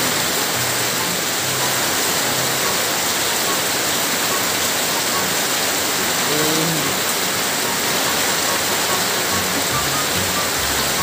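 Heavy rain pouring steadily, a dense even hiss of falling water, with quiet background music underneath.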